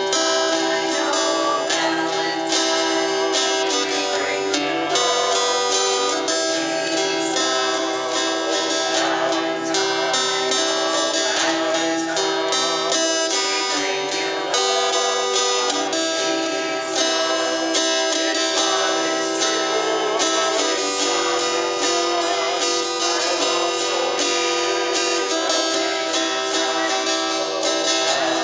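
Acoustic guitar being played, a steady run of plucked and strummed notes and chords.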